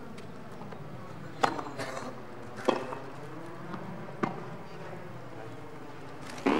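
Tennis ball being hit back and forth in a rally: four sharp racket strikes one to two seconds apart, over a steady background hiss.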